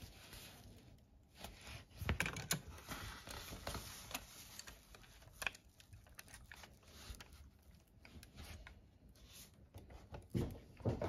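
LEGO plastic parts clicking and rattling as hands fit a brick-built engine block into a LEGO car and handle the model. There is a run of sharp clicks and knocks, louder about two seconds in and again near the end.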